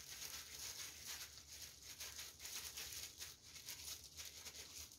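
Faint, continual crinkling of disposable plastic gloves as the hands knead and press soft mashed kabocha squash dough into a croquette.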